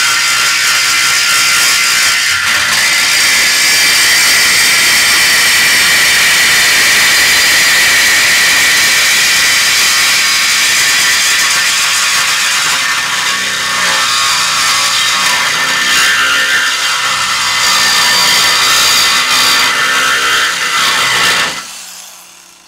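A power tool running under load with a steady, harsh noise, typical of cutting or grinding on the suspension fabrication. It dies away near the end.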